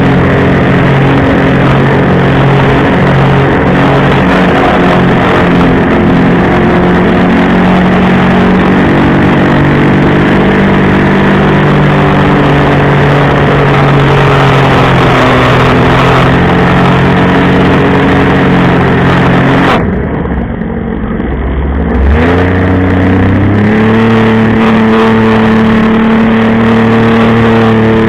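Jet ski engine running hard while towing a tube, its pitch shifting with the throttle. About two-thirds of the way through the throttle is eased off for a couple of seconds, then opened again, the pitch rising to a new steady level.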